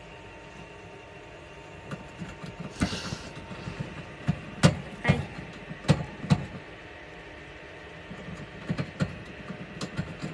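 Irregular clicks and knocks on a plastic hamster cage as the hamster clambers on it and a hand reaches in, with a short rustle about three seconds in, over a steady hum. The clicks come in two clusters, the louder one in the middle and a lighter one near the end.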